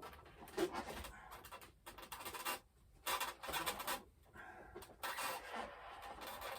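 Handling noise from fitting a vertical fin into the foam and plastic airframe of an RC model jet: irregular bursts of scraping, rubbing and creaking as the part is pushed and worked into its slot.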